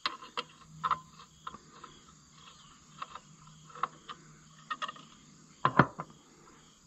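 Scattered light clicks and knocks of hand tools and metal parts being handled on a tractor, with a louder double knock a little before the end.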